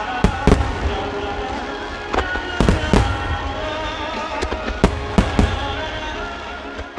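Aerial firework shells bursting in a rapid, irregular series of sharp bangs over background music, the sound fading near the end.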